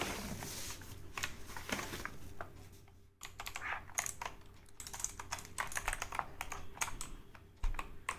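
Irregular clicking and clatter from a Redgear Shadow Blade MK853 mechanical keyboard's blue clicky switches, with some rustling, as the keyboard is taken out and handled.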